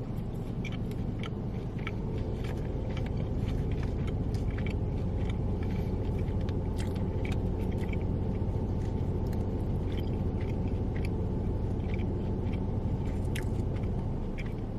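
A person chewing food close to the microphone: scattered short, crisp mouth clicks over a steady low rumble.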